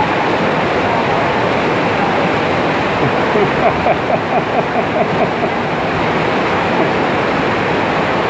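Shallow hot-spring river water rushing steadily through a concrete tunnel. Midway through, a voice makes a quick run of short sounds over the water's noise, about four or five a second for two seconds.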